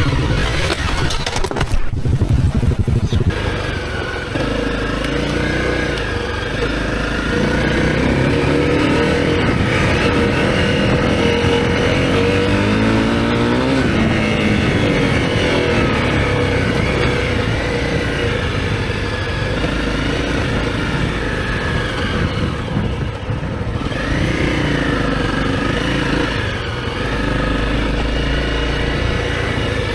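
Honda CRF250L's single-cylinder four-stroke engine under way on a dirt track, its revs rising and falling as the rider works the throttle and gears, with wind noise. A brief loud, noisy burst comes about two seconds in.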